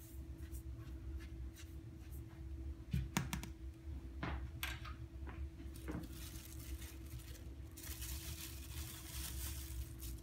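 Metal spoon scraping and clinking in a small plastic cup of white powder, with a few sharp clicks and taps around the middle, then a soft rustling near the end as fingers work over paper towels. A steady low hum runs underneath.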